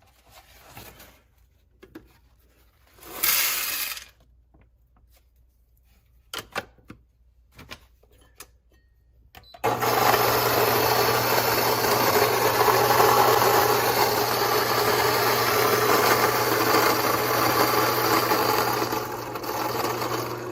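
A few light clicks and a brief rustle of handling. About ten seconds in, the Fellow Ode Gen 2 electric coffee grinder starts abruptly, its motor and 64 mm stainless steel flat burrs grinding beans with a loud, steady whirring hum that eases a little near the end.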